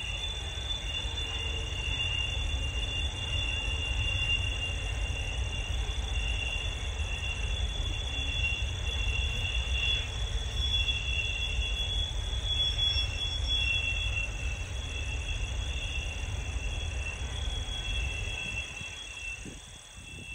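Norfolk Southern container freight train rolling past at a distance: a steady low rumble that eases near the end. High insect trilling comes and goes over it.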